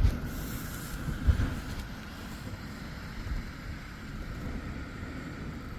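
Strong wind buffeting the microphone in uneven low rumbling gusts, the strongest about a second and a half in.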